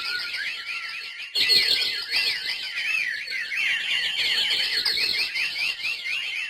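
A flock of small birds chirping and twittering, many short calls overlapping in a dense chatter. About a second and a half in it grows louder, with some low rustling underneath.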